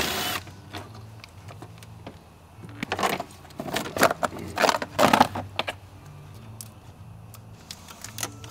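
Plastic battery tray clattering and knocking against the engine bay as it is worked loose and lifted out, a cluster of rattles from about three to five and a half seconds in.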